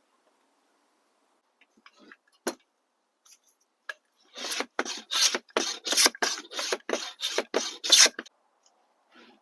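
Hand block plane shaving a wooden handle: a single knock, then about a dozen quick scraping strokes in a row starting around four seconds in.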